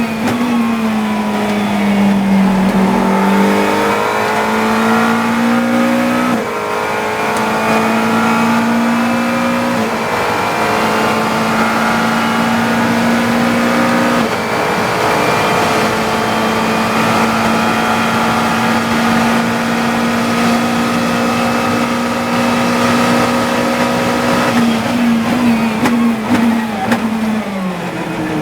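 GT3 race car engine heard from the cockpit, pulling hard at full throttle with quick upshifts a few seconds apart, then holding steady at high revs. Near the end the pitch steps down in quick jumps as the driver brakes and downshifts.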